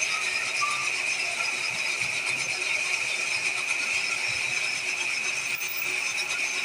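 Metal lathe running and turning a part, a steady high-pitched whine over a light mechanical rattle.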